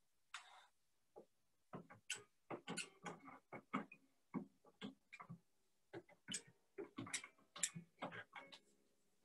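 Concert harp being handled between songs: faint, irregular clicks and taps, and near the end a few low strings ringing softly.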